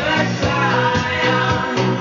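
A song with singing, guitar and a steady beat, played from a 7-inch vinyl single on a Telefunken W215 HiFi record changer.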